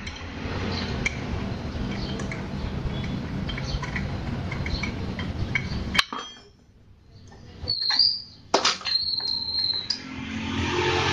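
Metal clicks and clinks from hands and tools working on the fan-faced drive pulley of a scooter's CVT, over a steady low hum. The hum cuts out suddenly about six seconds in, and a few short high chirps follow.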